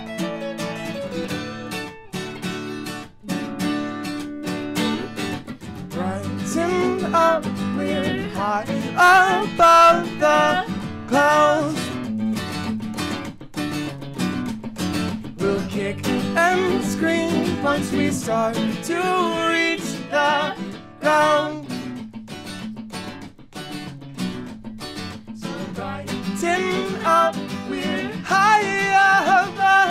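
Live guitar music: an electric guitar plays a melodic lead with bent, gliding notes over held lower chords.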